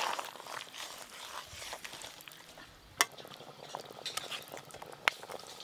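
Metal spatula stirring fish curry in a metal kadai, with soft scraping and two sharp clinks of the spatula against the pan, about three and five seconds in.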